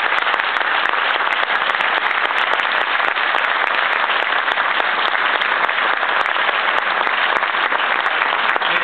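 Large audience applauding, a steady dense clatter of many hands clapping.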